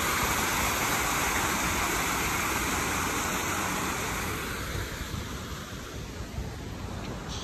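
Water from a small rock waterfall pouring and splashing into a garden pond, a steady rush that fades away about two-thirds of the way through, leaving a softer background hiss.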